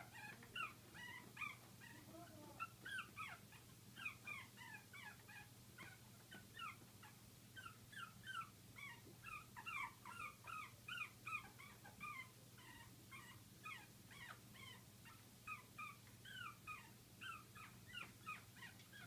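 Puppies whimpering: a faint, continuous stream of short, high squeaks, each falling in pitch, several a second.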